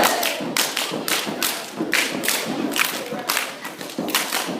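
Step team stepping: feet stomping and hands clapping and slapping in a fast, syncopated rhythm of sharp hits, about four a second.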